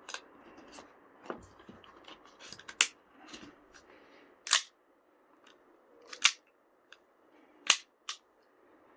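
KSC Makarov gas-blowback airsoft pistol being worked by hand: a run of small metallic clicks with four sharp, louder clacks about one and a half seconds apart.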